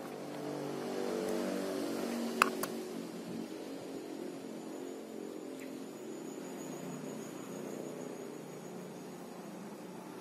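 A low, steady engine hum, growing louder over the first two seconds and then easing off. A sharp click sounds about two and a half seconds in, with a smaller one just after.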